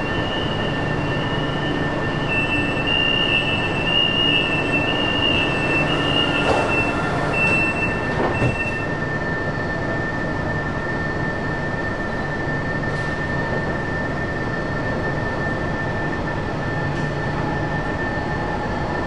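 Fuzhou Metro Line 4 train's running sound: a steady high whine over a low hum, with higher wavering tones during the first nine seconds or so. The train sits at the platform and begins to move off near the end.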